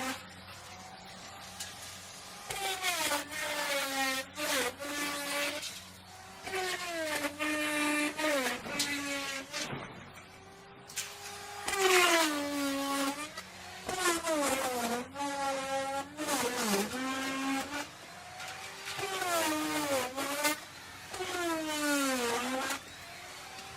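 Electric wood router running and cutting into wood in repeated passes, its high motor whine sagging in pitch and climbing back each time the bit bites under load. Louder cutting spells of two to three seconds alternate with quieter, steadier stretches.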